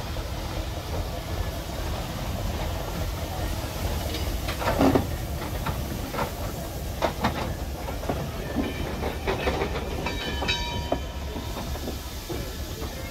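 Robert Stephenson & Hawthorns 0-4-0 saddle tank steam locomotive moving slowly with a brake van: a steady rumble of wheels on track with steam hissing, a loud knock about five seconds in and several sharper clanks after it. A brief high ringing tone sounds near the end.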